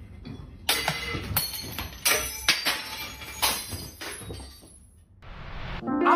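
Several sudden clattering crashes with a short ring after each, as hard objects are knocked about and fall from a shelf unit while a cat climbs it. The crashes fade out, and music starts right at the end.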